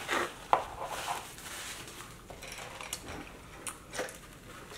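Light table-handling noises: a paper napkin rustling and food being moved about in cardboard takeout boxes, with a few sharp clicks and taps.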